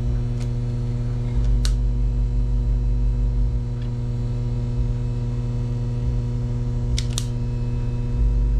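Steady electrical hum, with a handful of sharp clicks from a utility lighter being triggered to light fire starters, two of them close together near the end.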